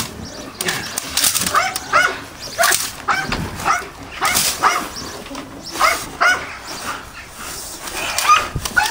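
Dog giving short whining yelps that rise and fall in pitch, a dozen or so at an irregular pace of about one or two a second.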